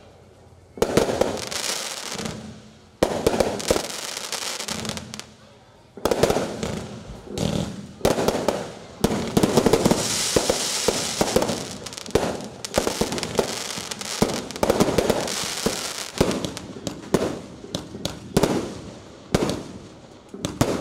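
Aerial fireworks bursting overhead: single loud bangs about a second, three seconds and six seconds in, each trailing off in crackle. From about eight seconds in comes a rapid barrage of bangs and crackling.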